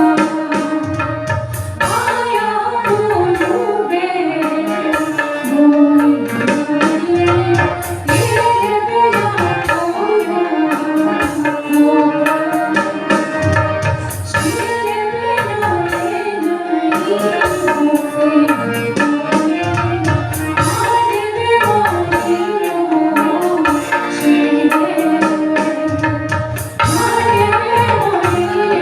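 Himachali Pahadi nati folk music: a melody line over a steady drum rhythm.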